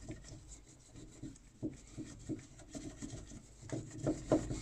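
A cloth rubbing and wiping inside the diverter valve housing of a Vaillant ecoTec boiler: a run of short, irregular scrubbing strokes as it is cleaned out.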